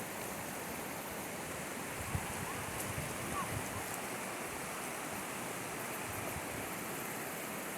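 Steady rushing of flowing water, an even, unbroken wash of sound.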